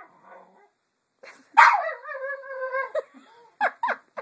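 A dog's long, wavering, pitched vocal call, a 'talking' howl-like yowl, starting about a second and a half in and lasting about a second and a half, followed by two short yelps near the end.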